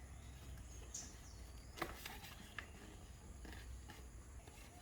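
A quiet room with a low hum and a few faint knocks from cardboard boxes being handled, and one short high chirp about a second in.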